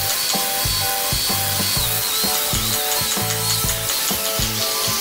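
Handheld electric belt sander running over a hardwood panel, a steady hiss with a high whine, mixed with background music that has a steady beat.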